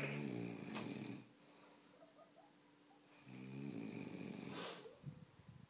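Snoring: two long, raspy snores about two seconds apart, each lasting around a second and a half.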